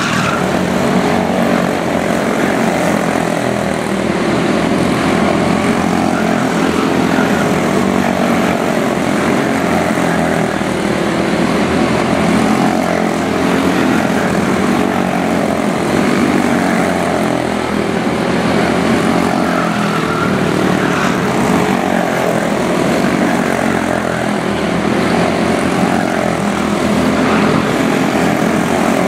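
Several quarter midget race cars with Briggs & Stratton Animal single-cylinder engines buzzing together as they lap a small oval. The combined engine note rises and falls slightly as the cars pass through the turns.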